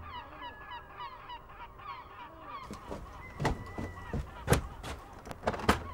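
A flock of waterbirds calling on the sea, many short honking calls rising and falling in pitch. About two and a half seconds in this gives way to a few heavy footsteps on a wooden walkway.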